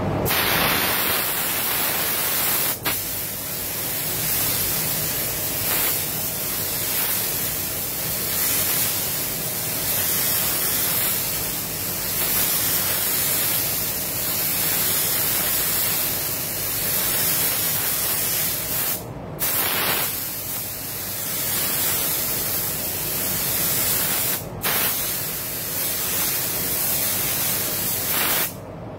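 Paint spray gun hissing as it sprays clear coat onto a car's panels. The trigger is let off briefly about three seconds in and twice more later on, and the spraying stops just before the end.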